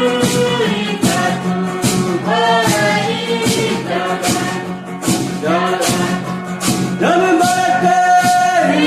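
Music with a group of voices singing together over a steady low drone and a regular shaken or struck percussion beat.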